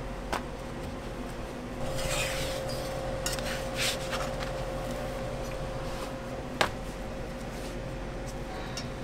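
Crepe-making sounds: a metal spatula scraping and tapping on the crepe griddle, with a sharp tap about six and a half seconds in, over a steady hum.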